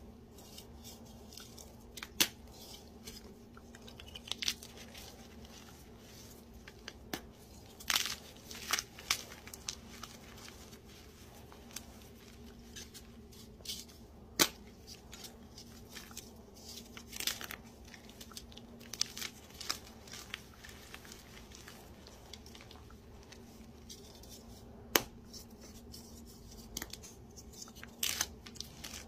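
Dyed powdery blocks crushed and snapped by hand. Sharp crunchy cracks come at irregular intervals, with softer crumbling and the rustle of powder between them.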